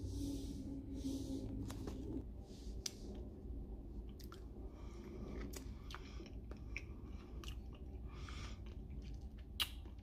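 A person chewing a small bite of homemade apple jelly close to the microphone: irregular small wet mouth clicks, with one sharper click near the end. A low hum fades out about two seconds in.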